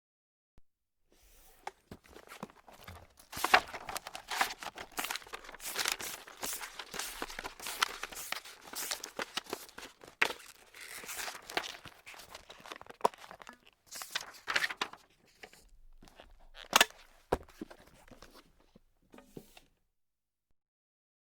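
Paper being crumpled and scrunched in the hands: a long run of crackling and crinkling, with sharp louder crackles about three seconds in and again near the end, stopping shortly before the end.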